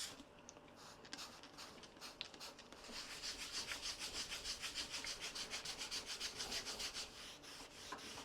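Faint back-and-forth rubbing by hand on a surface in quick, even strokes, about four or five a second. A few light scrapes come first; the rubbing starts about three seconds in and stops about a second before the end.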